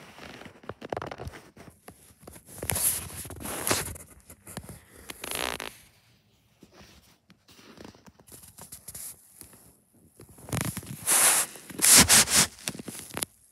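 Scratchy rustling and rubbing in irregular bursts, loudest near the end: handling noise of fabric and plush brushing against a phone's microphone as it is moved about.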